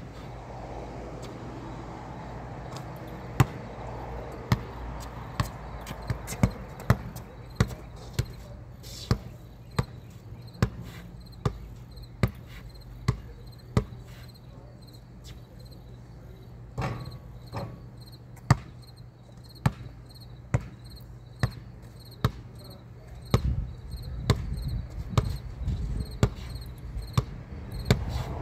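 Basketball dribbled on a concrete court: sharp bounces about once a second, over a steady low hum. A louder low rumble swells near the end.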